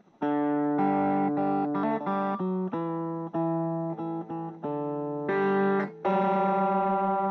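Guitar music: a melody of single held notes, changing about every half second to a second, starting just after the opening.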